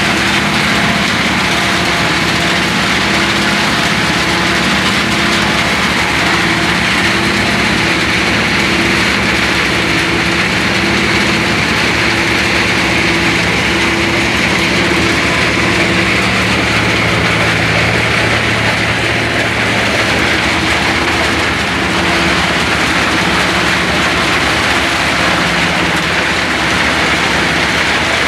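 Stone crusher running steadily: a loud, continuous mechanical din, an engine hum over a dense grinding noise.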